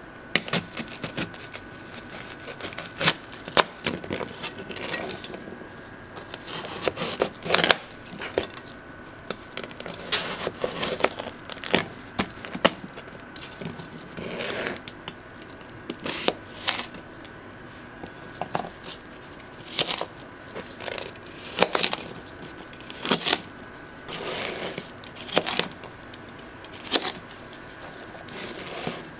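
Knife cutting through a candy apple's hard, sugar-crusted candy shell and the apple beneath, in a run of repeated sharp cracks and crunches, a new cut every second or two.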